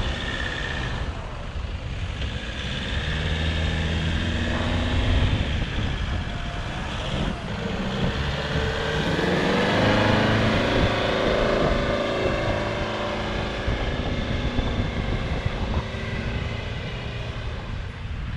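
Toyota Hilux four-wheel-drive ute's engine working under load as it tows a boat trailer through soft beach sand. The revs rise and fall, loudest about ten seconds in, with wind buffeting the microphone.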